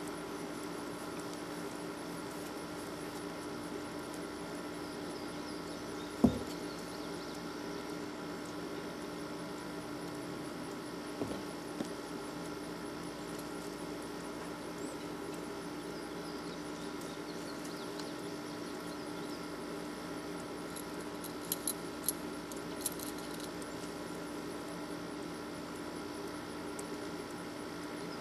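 A steady hum, with one sharp thump about six seconds in and a few light jingling clicks about two-thirds of the way through.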